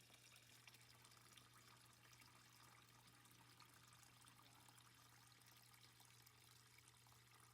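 Faint water trickling with a steady low hum: a dishwasher's drain pump running and emptying through the drain hose into a bucket, a check that the unit drains properly.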